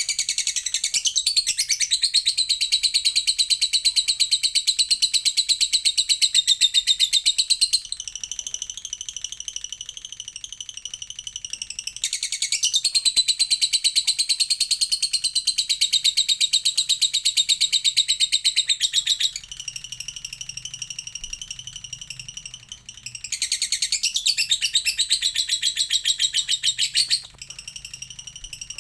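Lovebird singing a long unbroken run of rapid, high-pitched chattering trills, the extended "ngekek" song whose duration keepers prize. It is loudest in three long bouts, about the first eight seconds, again from about twelve to nineteen seconds and near the end, with softer chatter in between.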